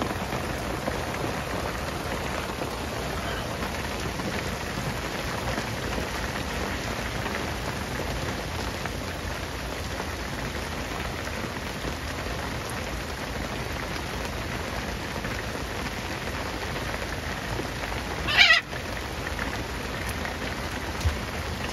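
Steady rain falling on a sailboat's deck and the water around it. Near the end comes one loud, short squawk from the macaw.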